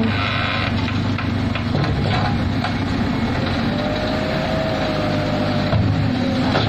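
Heavy road-construction machinery engines running steadily, with a faint thin whine in the second half.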